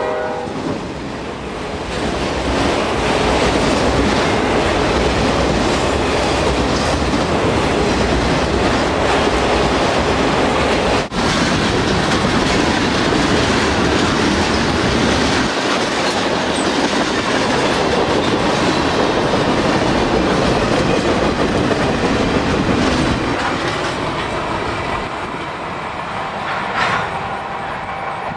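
Freight train cars rolling past: a steady rumble and clatter of steel wheels on the rails, with a short drop-out about eleven seconds in. The sound fades near the end as the last cars pull away.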